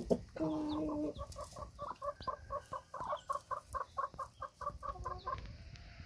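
A hen clucking: one longer drawn-out call near the start, then a steady run of short clucks, about four a second, that stops shortly before the end.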